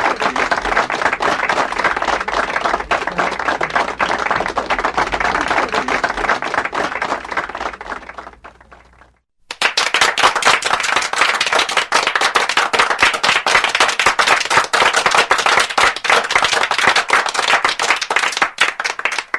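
Applause from a crowd, dense clapping that fades away about eight seconds in. After a brief silence a second round of applause starts suddenly and keeps going, thinning out near the end.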